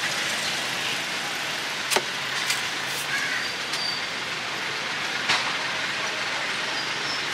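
Steady street background noise with a few sharp knocks or clicks, the loudest about two seconds in and another a little past five seconds.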